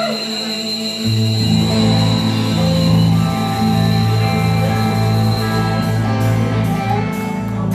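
Live rock band playing an instrumental passage on electric guitars, bass guitar and drum kit. A heavy bass line comes in about a second in, and cymbal hits sound near the end.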